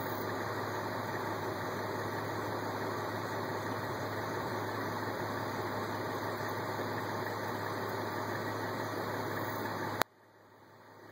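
Car engine idling steadily with a low hum. About ten seconds in it cuts off abruptly with a click, leaving only a faint hiss.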